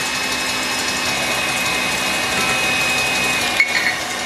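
Electric stand mixer running steadily at speed, its motor whining as it whips egg whites toward stiff peaks while sugar is added gradually. A sharp click and a few light clinks come near the end.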